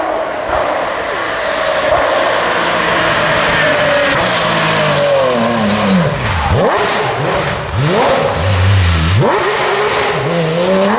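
Porsche flat-six rally car engine at high revs. About halfway through the pitch falls as it slows, then it climbs in three quick rising sweeps as the car accelerates up through the gears.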